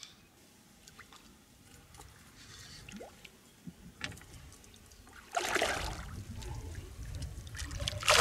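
Hooked barramundi splashing at the surface: a short splash a little after five seconds in, then a louder splash starting near the end. Before that, only faint scattered ticks.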